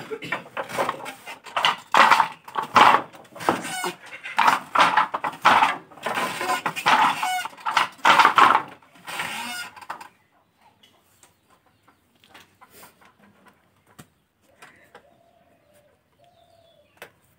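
Chickens clucking and cackling loudly in a run of repeated calls for about ten seconds, then falling quiet apart from a few faint clicks.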